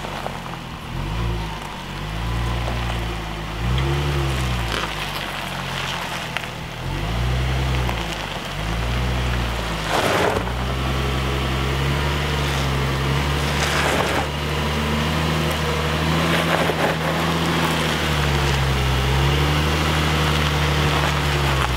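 Range Rover Velar engine working at low speed as the SUV crawls over gravel ruts, the revs swelling and dipping several times before settling to a steady pull. Gravel crackles under the tyres a couple of times, and the sound grows louder as the vehicle comes closer.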